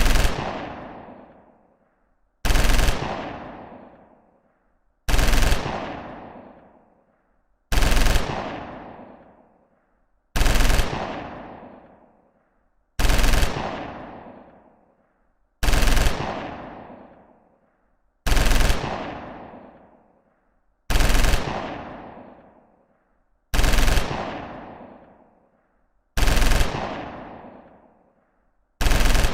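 Machine gun firing short full-auto bursts, each about half a second long, repeated about every two and a half seconds, twelve in all. Each burst is followed by a long echo that dies away over about two seconds.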